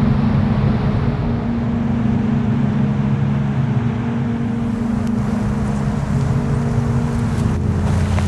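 Steady rush of river water over falls, under several low steady tones that change pitch about seven and a half seconds in.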